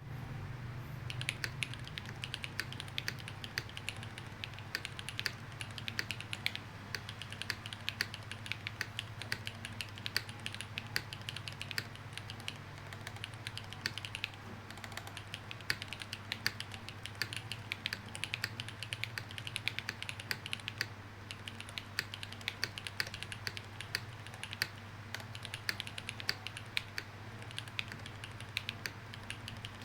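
Continuous typing on a top-mount custom mechanical keyboard with Gateron Sea Salt switches and GMK doubleshot ABS keycaps: a fast, uneven stream of keystroke clacks.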